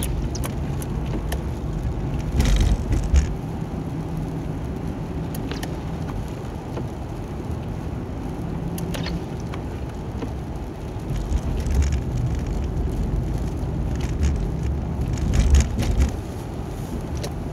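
Car's road noise heard from inside the cabin as it drives across an ice-glazed bridge deck: a steady low rumble of tyres and engine, with scattered sharp clicks and a few louder swells.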